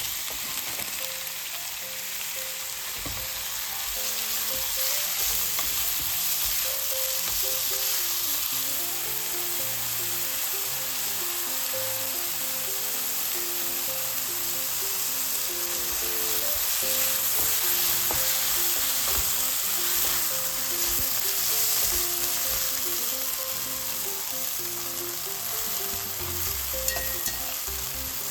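Food sizzling steadily as it fries in a pan, stirred now and then, under a soft background melody.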